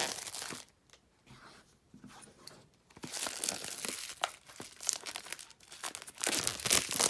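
Plastic shrink wrap being split and peeled off a boxed card deck, crinkling and tearing. It is sparse and quiet for the first few seconds, then turns into a run of crackling from about three seconds in, loudest near the end.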